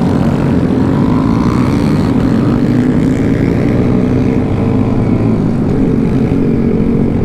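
Several small single-cylinder motorcycle and scooter engines (Honda Groms and Ruckus scooters) running together as a group rides along, a steady loud engine drone whose pitches shift as the riders work their throttles.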